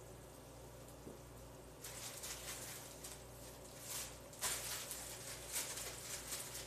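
Clear plastic bag crinkling and rustling in irregular bursts as it is handled, starting about two seconds in, over a steady low hum.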